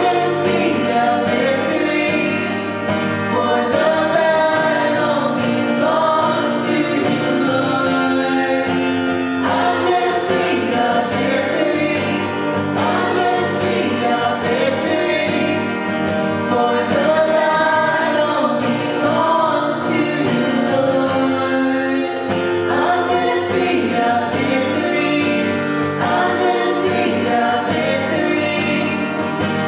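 A worship song: several voices singing together over instrumental backing.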